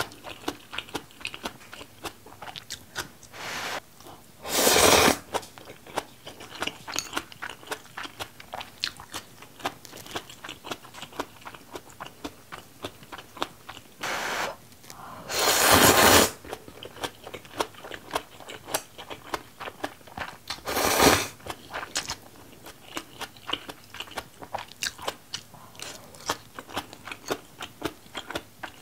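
Close-miked chewing of ramen noodles and seafood, with many small wet mouth clicks. Three loud noodle slurps stand out, about five, fifteen and twenty-one seconds in.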